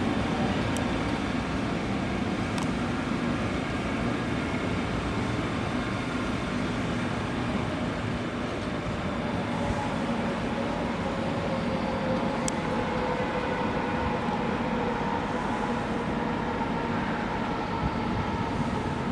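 Electric train moving through the station: a steady rumble of wheels on rails with a low hum. Faint tones sink slowly in pitch in the second half, and there are a few short high ticks.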